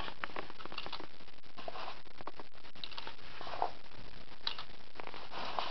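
Scattered light clicks and ticks of small plastic airsoft revolver shells being handled and pushed into the cylinder, with some soft rustling in between.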